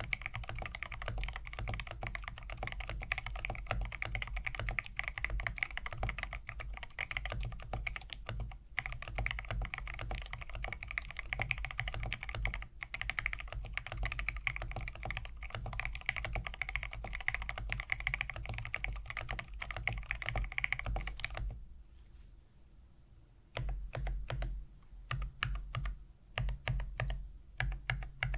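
Fast typing on a mechanical keyboard fitted with full aluminum keycaps (a Metal Keyboards set on a Smith and Rune Iron165): a steady run of rapid keystrokes. About three-quarters of the way through it stops for two seconds, then resumes as slower, separate key presses.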